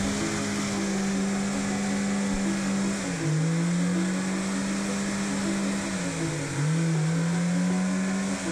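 Lada Niva's four-cylinder engine held at high revs under heavy load while climbing out of a muddy trench. Its note sags briefly about three seconds in and again about six seconds in, each time picking back up.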